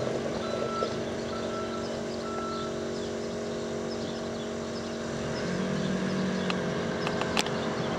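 Caterpillar TH407 telehandler's diesel engine running steadily while the machine drives, its reversing alarm beeping about once a second for the first few seconds and then stopping. About two-thirds of the way through a lower engine tone swells for about a second, and a few sharp clicks come near the end.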